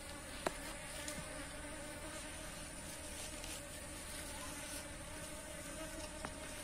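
Steady buzzing of many Asian honey bees (Apis cerana) around an opened hive. The colony is stirred up while its honeycomb is being cut out.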